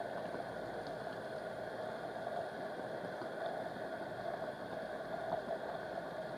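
Thick porridge simmering in an earthenware pot on a gas stove: a steady low bubbling while a wooden spatula stirs it.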